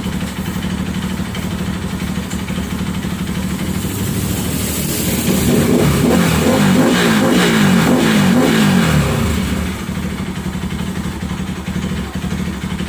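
Bajaj Pulsar RS200's single-cylinder engine running through an aftermarket canister exhaust with its silencer insert fitted: idling, revved up and down several times from about four seconds in, then settling back to idle.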